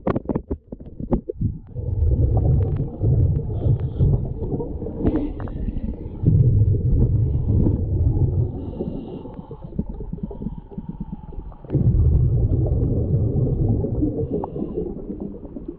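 Underwater scuba breathing heard through the camera housing: three long low rumbles of exhaled air bubbling out of a regulator, about every four to six seconds, with quieter gurgling between breaths.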